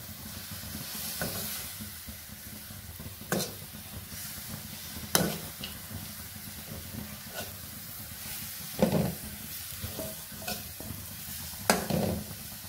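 Metal spoon stirring and tossing idiyappam (rice string hoppers) through a sizzling oil tempering in a metal kadai, with about four sharp clinks and scrapes of the spoon against the pan.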